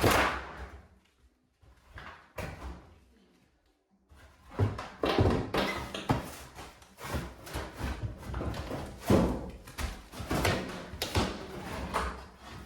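Wooden boards being pried and pulled off during demolition: a hard knock at the start, another about two seconds in, a brief lull, then a dense run of knocks, clatter and scraping of wood and nails.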